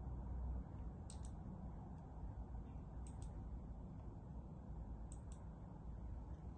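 Faint clicks of a laptop being operated, in quick pairs about every two seconds, over a low steady hum.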